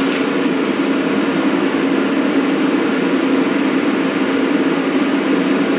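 Forced-air propane shop heater's blower fan running steadily, an even rushing hum, with a faint click right at the start.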